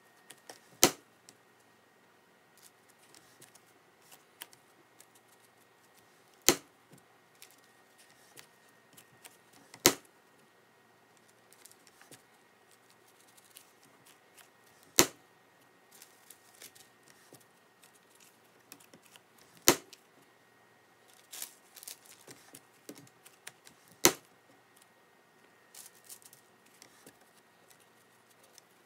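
Wire soap cutter slicing a loaf of cold-process soap into bars, with a sharp click as the wire arm comes down at the end of each cut. Six cuts come several seconds apart, with soft handling sounds of the loaf being slid forward between them.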